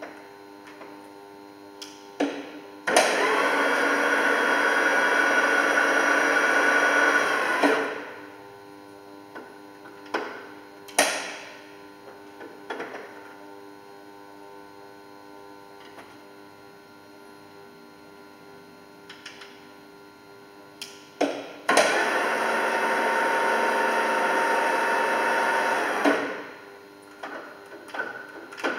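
Deckel FP3 milling machine running through its settings: a steady machine hum with clicks of levers and controls being set, and twice a loud, even gear-driven whir lasting about five seconds that starts and stops abruptly as a drive is engaged and then cut.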